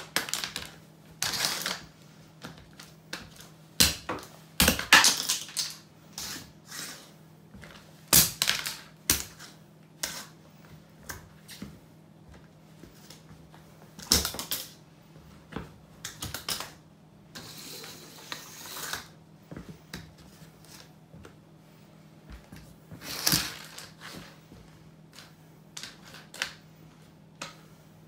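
Cofra steel-toe safety boots stomping on a plastic toy on a tile floor: irregular sharp cracks and crunches of plastic breaking, with clacks of the soles and loose fragments on the tiles. A longer scraping crunch comes about 18 seconds in.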